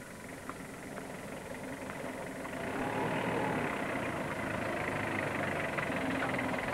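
First-generation Mitsubishi Pajero's engine running at low revs as the SUV creeps down a dirt bank toward the microphone. It grows louder about two to three seconds in as the vehicle draws near.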